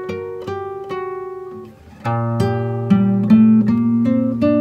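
Background music: a plucked melody of single notes. About two seconds in it dips briefly, then a louder, fuller passage with held low notes comes in.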